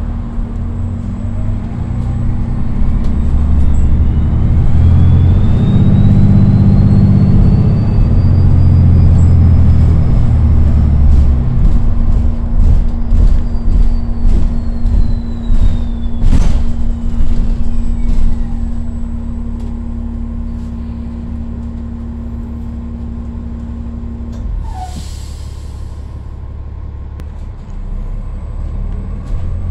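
Inside a New Flyer XDE40 hybrid bus under way. The Cummins L9 diesel engine is running hard with a heavy low rumble for the first ten seconds or so, while the BAE HybriDrive electric drive whines, rising in pitch as the bus gathers speed and then falling as it slows. A brief hiss of air comes about 25 seconds in, of the kind an air brake makes.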